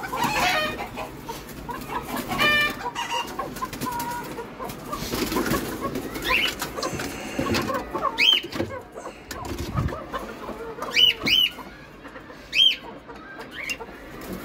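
Chickens clucking in a coop, with several short, sharp high calls around eight, eleven and twelve and a half seconds in. Light rustling and clicks come from the plastic crate and wire mesh being handled.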